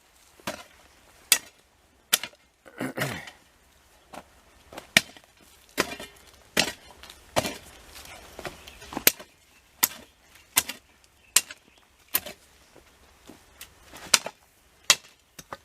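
Repeated chopping blows of a hand tool cutting into the roots and soil around a lemon tree's root ball: sharp single strikes, irregular at first, then about one every 0.8 s.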